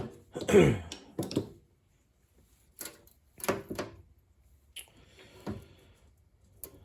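Handling noise from tools and a plastic case being moved on a work surface: a scattered series of knocks and clatters, the loudest about half a second in with a short falling squeak.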